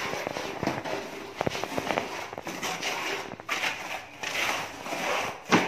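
Trowel work on a cement-plastered wall: scraping strokes with scattered clicks and taps, and one loud sharp knock near the end.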